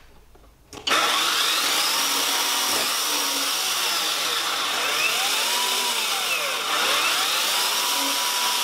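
Chainsaws mounted on pivots in a marble-run machine start up about a second in and run steadily. Their whine rises and falls in repeated arcs.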